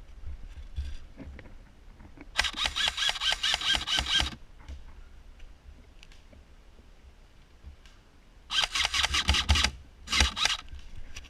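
Airsoft gun firing three rapid full-auto bursts of sharp clicks: a burst of about two seconds, then a shorter burst near the end followed quickly by a brief one.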